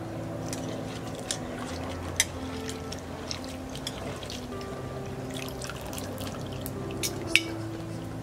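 Water splashing and dripping in a stainless-steel bowl as hands swish and squeeze chopped vegetables while washing them, with a few sharp splashes, the loudest about two seconds in and near the end. Background music plays throughout.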